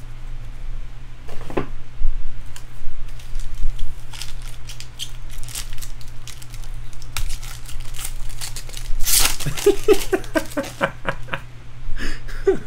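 Foil wrapper of a Bowman Draft jumbo baseball card pack crinkling and tearing as it is opened by hand, in a string of crackles and rustles with a louder, longer tear about nine seconds in. A steady low hum runs underneath.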